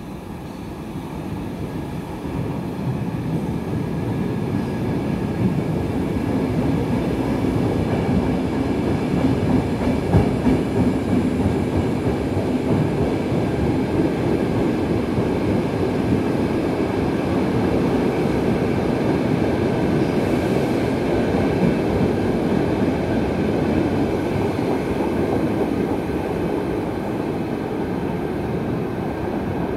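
Stockholm metro C6 train running through an underground station without stopping. The sound of wheels on the rails builds over the first few seconds as it approaches, stays loud as the cars pass along the platform with steady whining tones above the noise, and eases a little near the end as it draws away.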